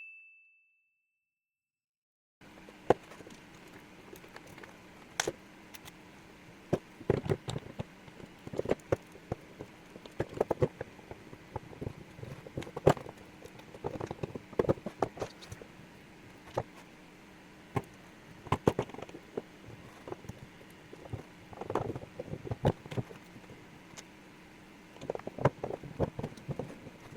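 After about two seconds of dead silence, irregular clicks, knocks and clatter of small hard parts being handled and set down, over a low steady hum.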